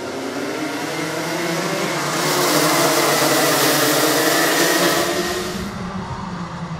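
A pack of two-stroke racing karts accelerating, many engines running together at high revs. The sound swells about two seconds in as the pack passes close, then fades away after about five seconds.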